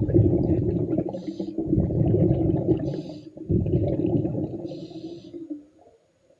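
A diver breathing underwater through breathing gear: three long, rough rumbles of exhaled bubbles, with a short hiss from the gear between breaths.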